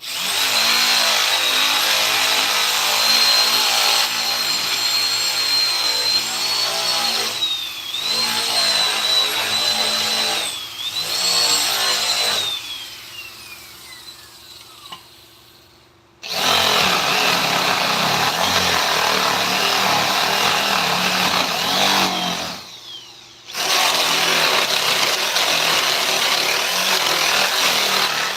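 Electric power tool working wood: a high motor whine that sags twice under load, then winds down over a few seconds and stops. It starts again with a harsher cutting-and-grinding sound, breaking off briefly near the end.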